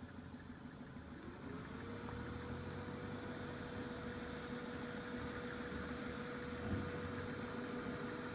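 2000 Dodge Neon's four-cylinder engine running steadily at low revs, with a thin whine that rises in pitch over the first two seconds and then holds.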